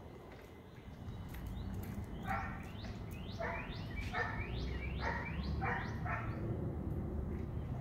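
A dog barking in a quick run of about seven short, sharp barks, starting a couple of seconds in and stopping shortly after six seconds.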